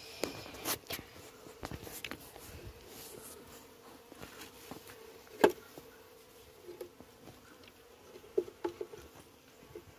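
Honeybees buzzing in a faint, steady hum, with scattered knocks and clicks of a knife and hands against a wooden hive box. The sharpest knock comes about halfway through.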